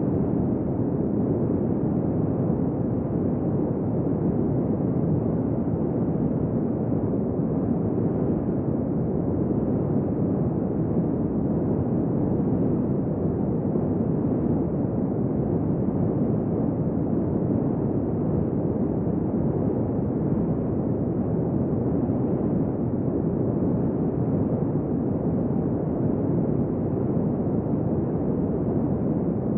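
Steady deep white noise: an even, unchanging rush weighted toward low pitches, muffled, with little high hiss.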